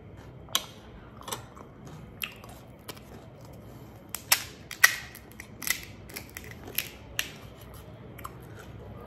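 Crisp, hollow panipuri shells (puris) cracking and crunching as they are broken open: a string of sharp, separate cracks, the loudest cluster about four to five seconds in.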